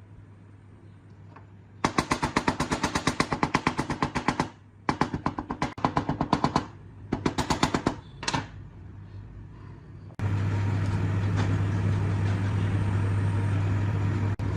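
Power tool in several bursts of rapid, even hammering, each a second or two long, then a steady loud machine noise with a low hum that starts about ten seconds in.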